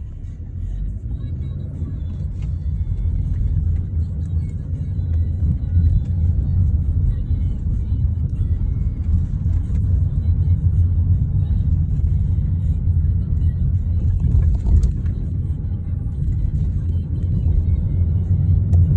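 Low road and engine rumble inside a car's cabin as the car pulls away and drives on, growing louder over the first few seconds as it picks up speed.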